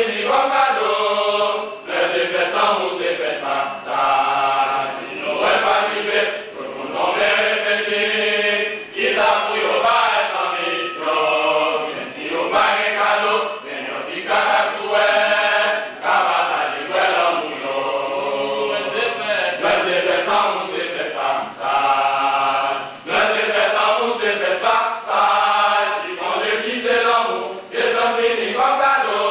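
A men's choir singing together, in phrases broken by brief pauses.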